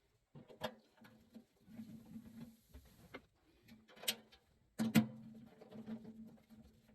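Several sharp knocks and clicks of tools and parts being handled, the loudest about five seconds in, over a faint low hum, with a brief high hiss near the start.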